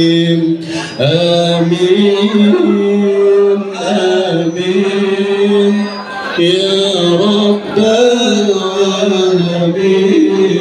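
Voices chanting an Islamic devotional song (sholawat) to a slow melody, with long held notes that break and start again every second or two.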